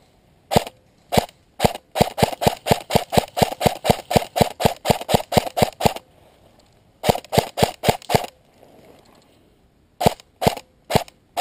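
Airsoft rifle firing: a few single shots, then a quick run of about twenty shots at roughly five a second, a shorter run of about six, and four more single shots near the end. Each shot is a sharp snap.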